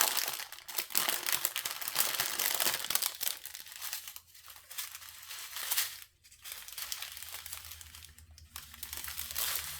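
Small plastic bags of diamond painting drills crinkling as they are handled, in irregular bursts of rustling with short pauses.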